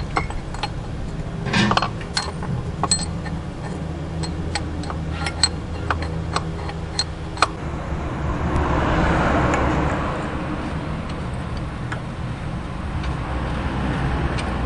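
Ratchet wrench on a long socket extension clicking in scattered single ticks while a starter motor mounting bolt is turned, over a steady low hum. A soft swell of hiss rises and fades a little past halfway.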